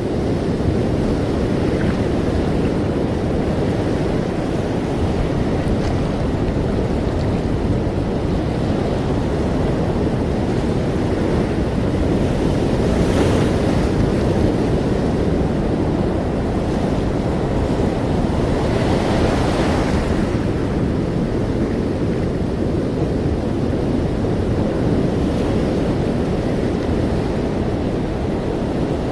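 Ocean surf: a steady wash of waves with a low rumble, swelling as a wave breaks about halfway through and again about two-thirds of the way in.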